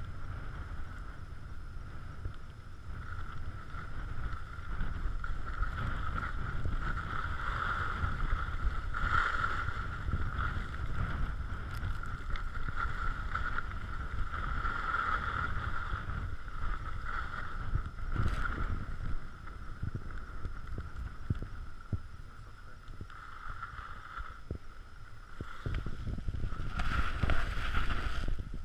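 Wind buffeting a skier's camera microphone during a downhill run, a low uneven rumble, with the steady hiss of skis sliding on packed snow that swells and fades as the skier turns; it grows louder near the end.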